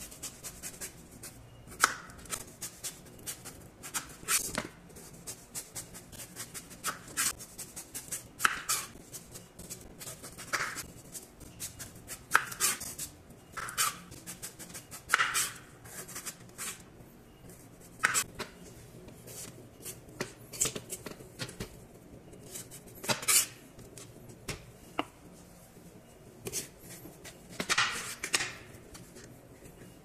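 A large kitchen knife slicing the rind off a canary melon in strips. Each cut is a short, crisp scrape, coming irregularly about every one to two seconds, with small clicks in between.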